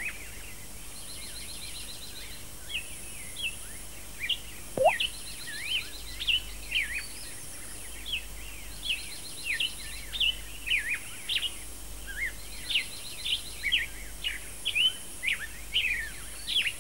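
Songbirds chirping and twittering in a rural meadow: many short call notes with a few fast trills, over a steady faint background.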